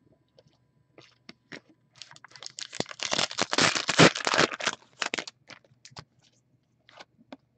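Hockey trading cards being shuffled and flicked through by hand: scattered light clicks, then from about two seconds in a dense run of rustling and flicking card stock lasting about three seconds, followed by a few more clicks.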